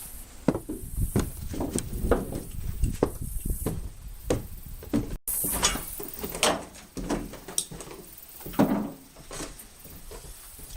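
Irregular knocks and thumps of things being handled, with wooden bumps and scrapes. The sound drops out for an instant about five seconds in.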